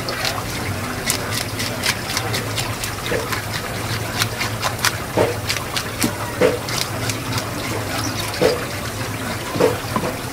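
Tap water running and splashing over a parrotfish while its scales are scraped off with a wooden-handled fish scaler, in many quick short scraping strokes.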